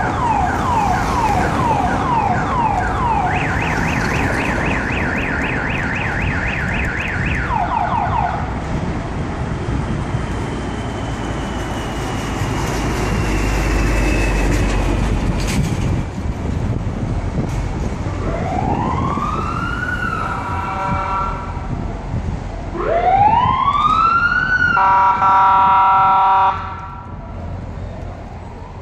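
A car alarm runs through its cycle of tones: repeated falling chirps, then fast high beeping, then chirps again, over steady street traffic. Later a police siren sweeps up in pitch twice, each sweep running into a loud pulsing blare; the second blare is the loudest and cuts off sharply.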